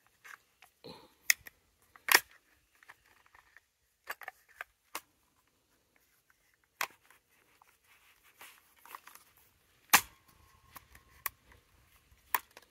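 Scattered metallic clicks and knocks of AR-15 rifle parts being fitted together by hand, with the sharpest knocks about two seconds in and again near ten seconds.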